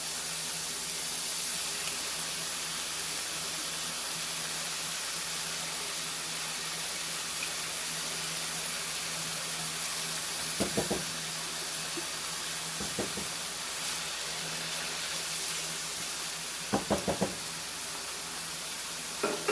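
Meat sauce hissing steadily as it cooks in a pan. A few short clusters of knocks come from a spoon tapped against the pan; the loudest is four quick taps near the end.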